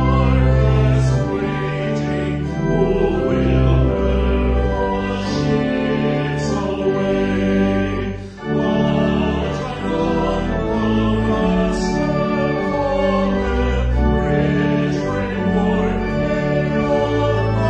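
A hymn sung by voices with organ accompaniment, in long held chords over deep bass notes, with a brief break about eight seconds in.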